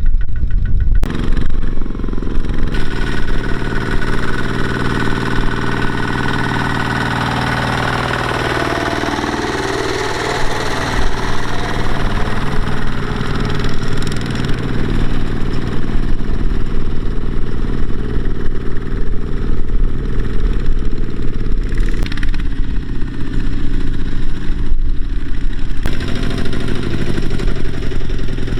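Diesel engine of farm machinery running steadily, its tone shifting abruptly a few times.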